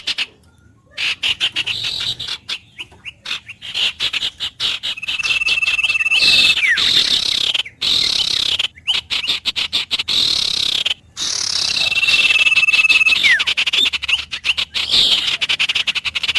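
Wild birds calling. A whistled note is held about a second and then drops away quickly, coming back three times, over a steady mass of chirping and rapid clicking calls.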